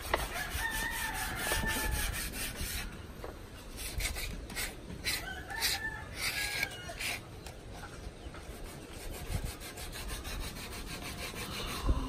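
Sandpaper rubbed by hand along a wooden door frame in quick back-and-forth strokes. A rooster crows twice in the background, once near the start and again about halfway through.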